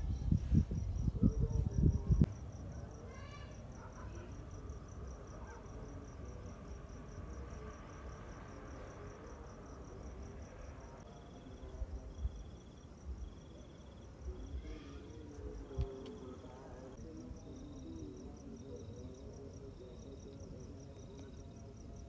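Crickets chirping in a fast, steady, high trill. A second caller adds short notes repeated about every two-thirds of a second in the latter half. A loud low rumbling noise fills the first two seconds.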